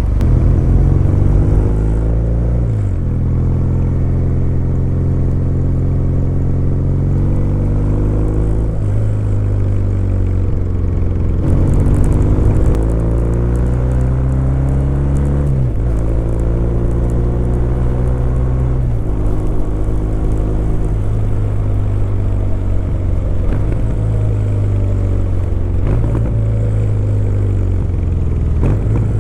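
Kawasaki W800's air-cooled parallel-twin engine and exhaust on the move. Its pitch climbs and drops several times as the rider works up and down through the gears.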